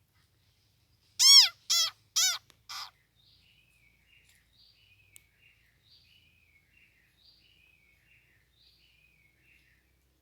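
Four loud, harsh calls in quick succession about a second in, each fainter than the last, followed by a faint bird singing a short falling phrase about once a second.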